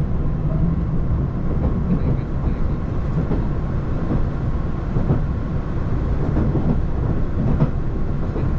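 Diesel train running on the rails: a steady low rumble with a few faint clicks.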